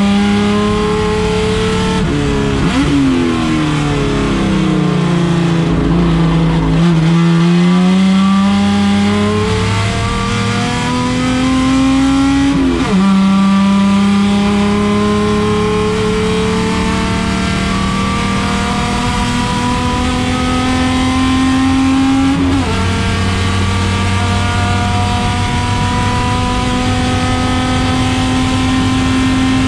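Turbocharged Chevrolet Opala race car engine pulling hard through the gears. The pitch dips and climbs again in the first several seconds, then climbs steadily, dropping sharply at gear changes about 13 and 22 seconds in.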